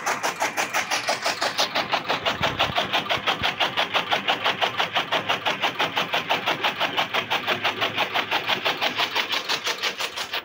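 Motor-driven chaff cutter chopping green jowar (sorghum) stalks: the flywheel blades make a fast, even chopping rhythm as the toothed feed rollers draw the stalks in.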